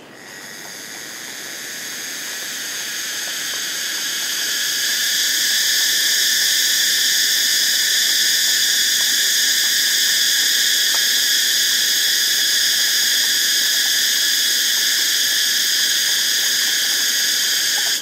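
Cicada singing: a loud, dense, high-pitched buzz that swells over the first five seconds or so, holds steady, then stops suddenly.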